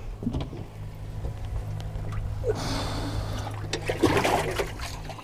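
Water splashing and trickling in a boat's live well as a hand reaches in to grab a bass, with a louder splash about two and a half seconds in and again around four seconds in. A steady low hum runs underneath.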